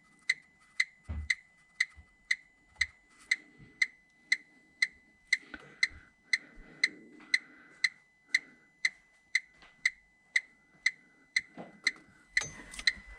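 Electronic gas leak detector ticking: short, high, beep-like clicks at a steady rate of about two a second, with no speeding up.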